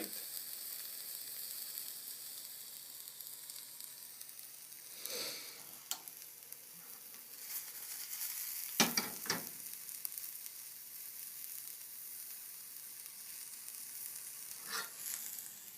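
Omelette sizzling steadily in a non-stick skillet as it finishes cooking, with a few brief knocks or scrapes against the pan.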